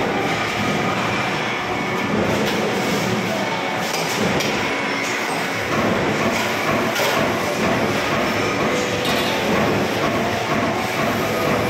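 Steady mechanical din of a sheet-metal workshop: a press brake running, with occasional clanks of sheet metal being handled.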